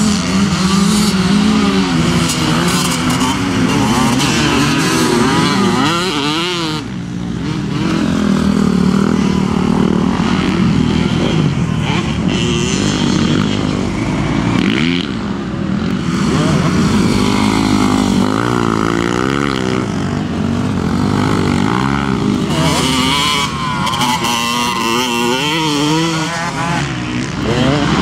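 Motocross bikes racing past one after another, their engines revving up and down with the throttle.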